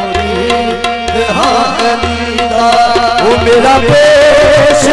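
Live qawwali music: tabla drumming a steady beat under held harmonium notes.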